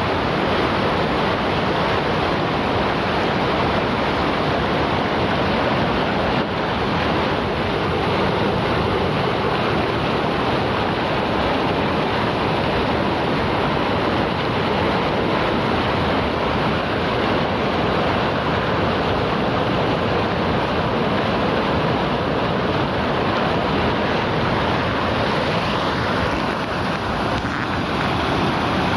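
River water rushing over rocks in a steady, loud, unbroken roar.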